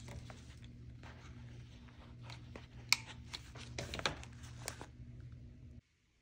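Paper pages being handled and pressed down, small rustles and taps with one sharp click about three seconds in, over a steady low hum; the sound cuts off abruptly near the end.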